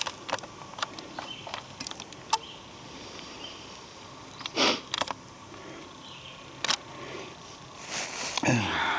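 Footsteps through forest undergrowth: scattered twig snaps and leaf crackles, with a louder crunch about halfway through.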